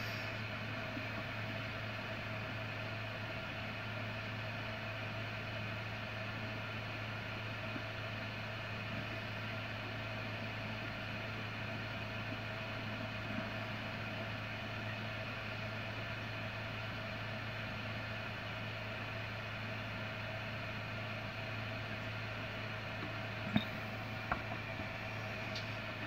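Steady mechanical hum of a running machine, unchanging throughout, with two light clicks near the end.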